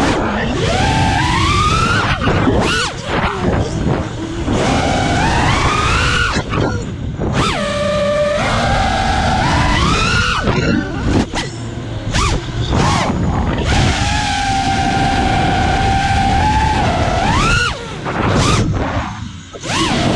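Onboard sound of a 6S FPV quadcopter's motors whining, the pitch gliding up and down with each throttle change, over wind rushing past the camera. The whine holds steady for a few seconds near the end, then rises sharply, and it drops away briefly twice as the throttle is cut.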